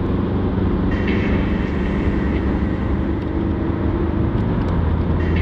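Steady drone of a car driving at motorway speed, engine and tyre noise heard from inside the cabin.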